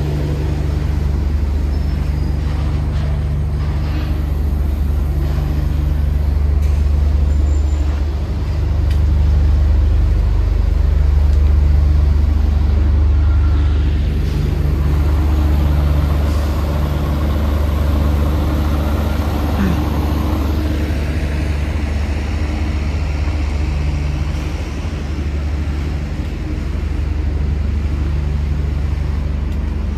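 Motor vehicle engine and road noise heard from inside the cab: a steady low drone that swells for a few seconds around the middle.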